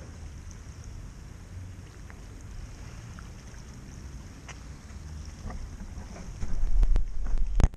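Wind buffeting the camera microphone, with faint lapping of small waves on the pebbles. Near the end a hand handles the camera, giving loud low rumbling thumps for about a second.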